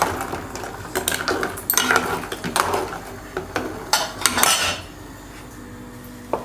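Metal spoon knocking and scraping against a cooking pot in a series of sharp clinks and short scrapes, with a quieter stretch in the last second and a half.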